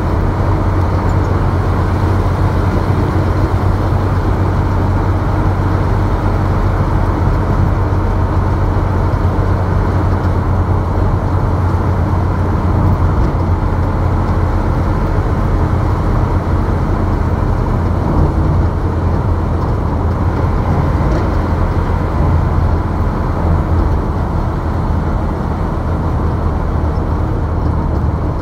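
Steady drone of a moving road vehicle at cruising speed: engine hum and tyre and road noise, with a strong low hum that holds level throughout.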